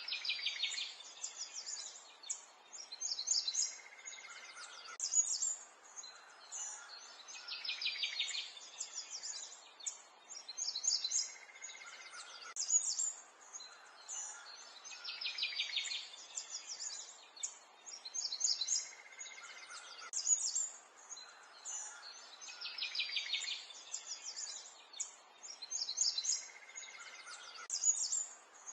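Birds chirping and trilling, the same run of calls repeating about every seven and a half seconds, as in a looped birdsong recording.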